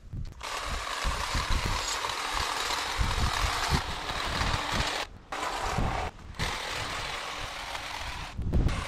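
Cordless hedge trimmer running as its blades cut through a cotoneaster hedge. The motor stops briefly twice, about five and six seconds in, and cuts off near the end.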